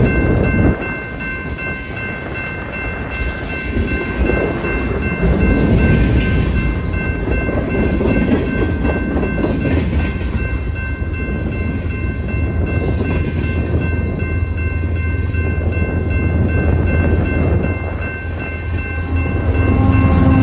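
Freight cars of a BNSF train rolling past close by: wheels rumbling and clattering over the rails, with a steady high-pitched whine throughout. Near the end a trailing diesel locomotive arrives, and its engine's low hum swells up under the wheel noise.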